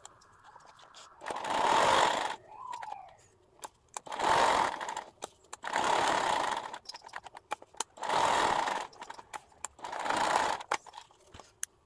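Mini sewing machine stitching through folded denim in five short runs of about a second each, stopping briefly between runs as the seam goes around the piece.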